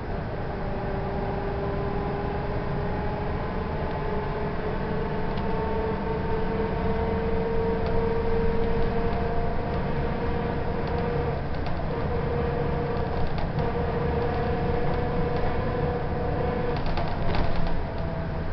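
Volvo B10M Mark IV bus under way, heard from inside the cabin: a steady engine and drivetrain rumble with a whine that rises slowly in pitch over the first few seconds, then holds, breaking off briefly a few times. A short louder rattle comes near the end.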